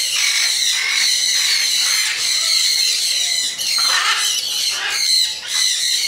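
A flock of parrots in an aviary, macaws, sun conures and grey parrots among them, squawking and screeching all at once in a constant shrill chorus.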